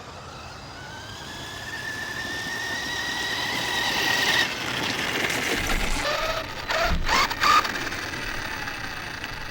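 Brushless electric motor and drivetrain of an Arrma Outcast 1/8 RC truck whining at low power, slowly rising in pitch and loudness for about four seconds and then cutting off, with a few short whines and a thump later on. The battery has tripped its low-voltage cutoff, which limits the power.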